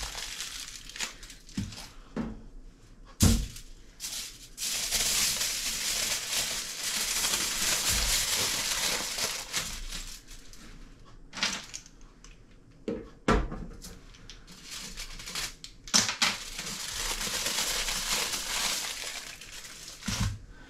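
Aluminium foil being folded and crimped by hand to seal a parcel, crinkling in long stretches, with a couple of sharp knocks, about 3 and 13 seconds in.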